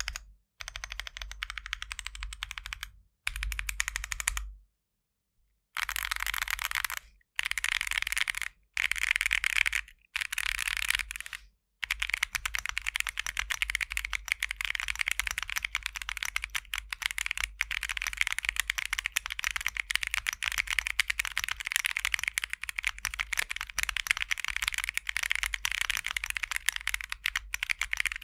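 Typing on a mechanical keyboard with Akko Creamy Purple Pro tactile switches: sharp, high-pitched clacking with a slight spring ping. It comes in short spells separated by silent gaps at first, then runs on as unbroken fast typing through the second half.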